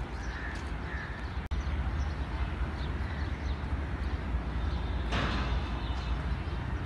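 Crows cawing a few short times over a steady low rumble, with a brief hiss about five seconds in.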